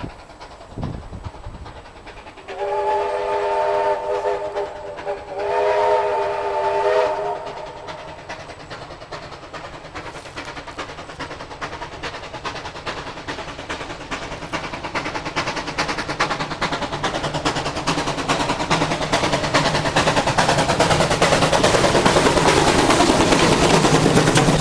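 Steam locomotive sounding its chime whistle in two blasts, the first about two and a half seconds long and the second shorter, then chuffing as it approaches, its exhaust beats and running gear growing steadily louder until it passes close by.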